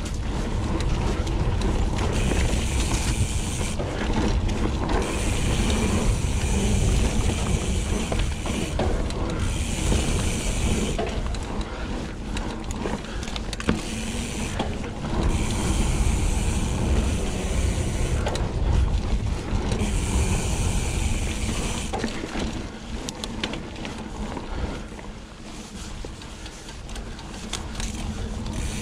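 Hope Pro 4 rear hub freewheel buzzing in spells of a few seconds while the bike coasts, breaking off between spells, over a steady low rumble of the ride down the trail.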